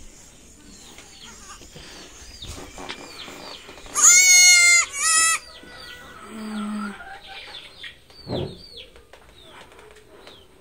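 A goat bleating loudly: one wavering call of about a second, followed at once by a shorter one, about four seconds in. Faint, short, high chirping calls recur throughout.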